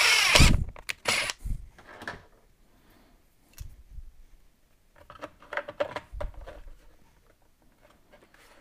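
Cordless drill boring through a plastic box lid, whining and stopping about half a second in, its pitch falling as it winds down. Then a few sharp clicks and light plastic handling noises as a panel-mount connector is pushed into the new hole.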